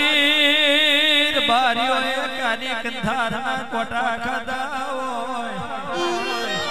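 Gujarati regdi folk music: a wavering, heavily ornamented melody line held over a steady drone, with short stepped notes coming in near the end.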